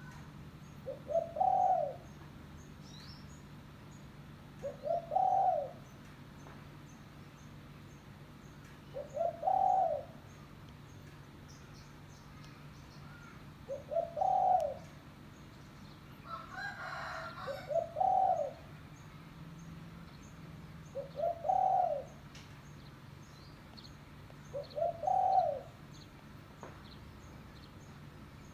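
Spotted dove (tekukur) cooing, its phrase repeated about every four seconds: each is a couple of short notes running into a longer coo. A brief rougher sound comes about halfway, and faint high bird chirps sound in the background.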